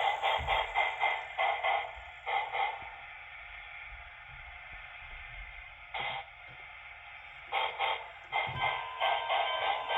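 Sound decoder of a Broadway Limited HO scale PRR T1 duplex steam locomotive model, playing steam exhaust chuffs through its small speaker. Rapid, even chuffing runs for about two seconds, then gives way to a softer steady hiss with one short puff. The chuffing starts again near the end.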